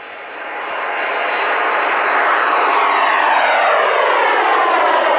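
Jet aircraft flying past: its engine noise swells over the first second or so, then holds loud and steady with a sweeping, falling-then-rising whoosh as it passes overhead.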